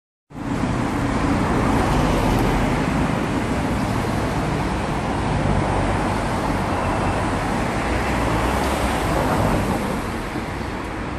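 Steady road traffic noise: passing cars with a low engine rumble under an even hiss.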